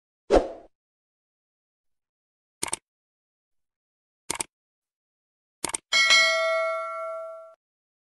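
Subscribe-button animation sound effects: a short thud, then three mouse clicks about a second and a half apart. The last click is followed by a bell ding that rings out for about a second and a half.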